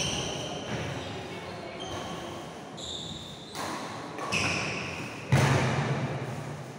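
Players' shoes squeaking and thudding on a wooden badminton court floor as they run and lunge in a rally, with a loud thud a little after five seconds in.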